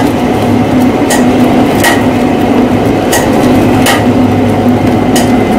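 Metal lathe running steadily with a loud, even hum while turning a bar with a coarse cut thread, and sharp clicks at uneven gaps of one to two seconds.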